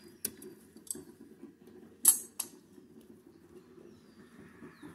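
Small metal clicks and clinks of a steel washer and nut being fitted by hand onto a bolt through a wheelbarrow's steel brackets, a few sharp ones with the loudest about two seconds in.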